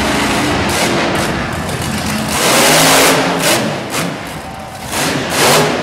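Monster truck engine revving hard as the truck drives up onto a row of junk cars, with a loud full-throttle surge about halfway through and another near the end.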